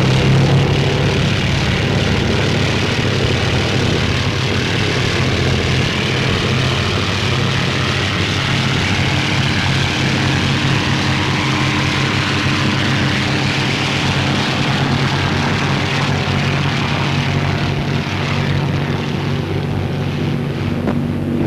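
Supermarine Walrus amphibian's Bristol Pegasus radial engine and propeller running steadily at high power: a loud, even drone.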